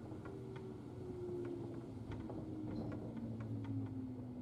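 JR 103 series electric train heard from inside the car: the motor and gear hum slides steadily down in pitch as the train slows, over a rumble of wheels on rail. Regular clicks come roughly every half second or so.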